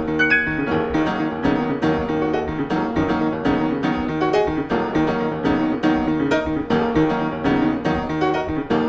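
Background piano music: a steady, even run of notes.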